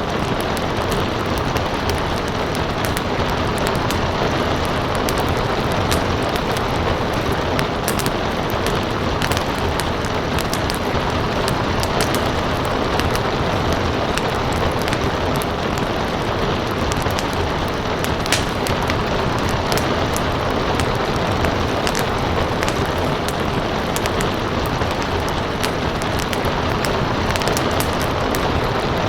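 Steady rain hiss with a wood fire crackling over it: scattered sharp pops and snaps at irregular intervals.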